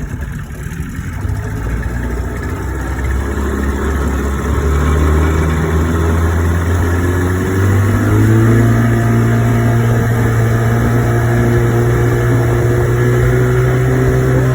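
1985 Evinrude 25 hp two-stroke outboard motor being throttled up: its pitch and loudness climb over the first several seconds, then it runs steadily at speed. The fuel pump is newly replaced.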